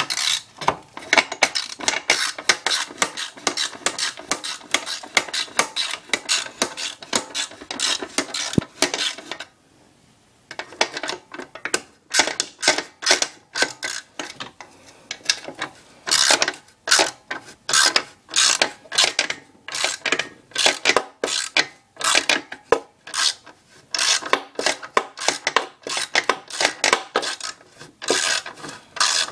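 Hand socket ratchet clicking in quick back-and-forth strokes, backing out the last two bolts that hold a Honda 160cc lawn mower engine's block. A steady run of clicks, a short pause about ten seconds in, then bursts of strokes.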